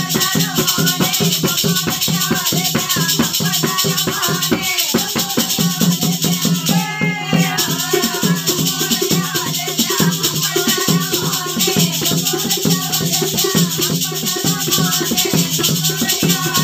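Women singing an Awadhi dhobi geet folk song, accompanied by a dholak hand drum and a rattle keeping a steady, quick beat.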